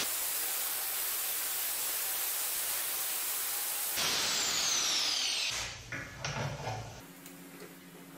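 Angle grinder cutting through a steel shaft, a steady, loud grinding hiss for about four seconds. Then its whine falls as the disc spins down, followed by a few light knocks of metal parts being handled.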